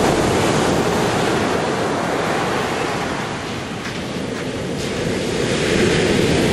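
Ocean surf washing up on the beach, a steady rushing noise mixed with wind on the microphone; it eases a little in the middle and swells again near the end.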